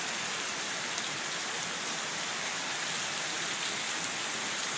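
Heavy rain pouring down steadily, with gutters overflowing, an even hiss that doesn't change.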